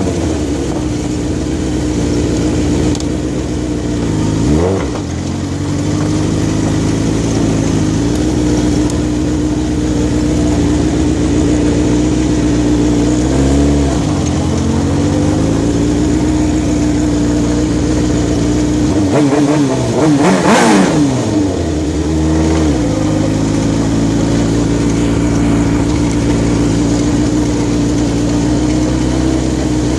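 Suzuki sportbike engine running steadily, its revs rising and falling back a few times, most strongly about twenty seconds in.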